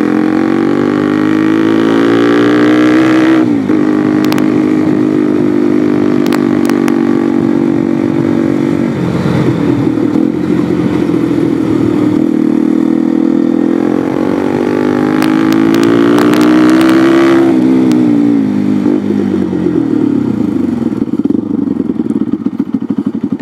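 Bajaj Pulsar NS200 single-cylinder engine running through a replica Akrapovic slip-on exhaust with the dB killer fitted. The revs climb, drop sharply a few seconds in, hold steady, climb again past the middle and then fall away.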